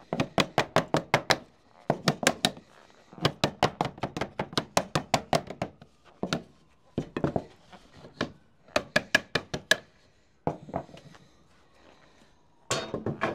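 Rapid runs of sharp taps, about seven a second, in several bursts with short pauses: a hand tool striking sheet lead while it is being bent and dressed into shape. The longest run comes a few seconds in, and a short burst comes near the end.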